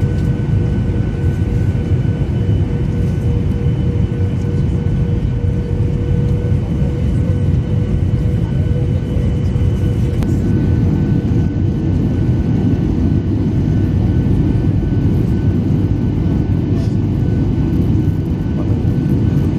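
Steady jet-airliner cabin noise from a Boeing 737-800: a deep, even rush of engines and airflow with a faint steady hum over it. Part of the hum drops out about halfway through.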